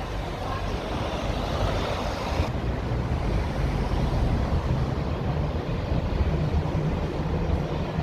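Steady low rumble of jet engines from airliners taxiing on the ground, with some wind on the microphone.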